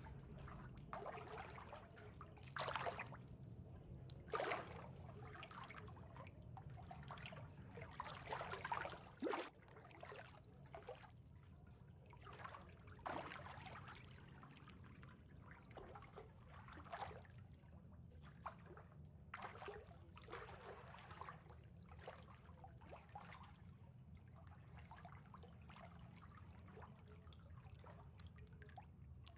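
Faint water lapping and trickling in irregular soft splashes, the most distinct ones in the first half, over a steady low hum.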